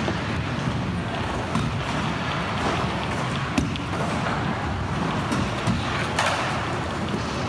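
Indoor skatepark ambience: a steady rumble of skateboard, scooter and BMX wheels rolling over the ramps, broken by sharp clacks and thuds of boards and decks hitting and landing, the loudest a little past three and a half seconds in.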